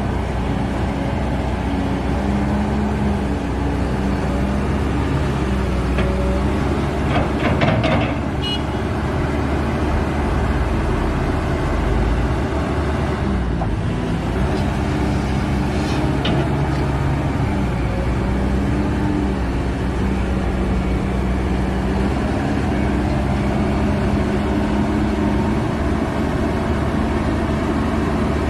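Kobelco excavator's diesel engine running under working load, its pitch shifting as the hydraulics are worked. There is a short cluster of metal clanks about seven seconds in and another around sixteen seconds.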